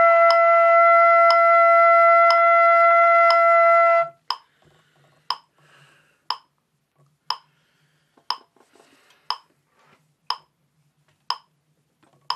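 Trumpet holding a steady long tone, which stops about four seconds in. A metronome clicks about once a second throughout and carries on alone after the note ends.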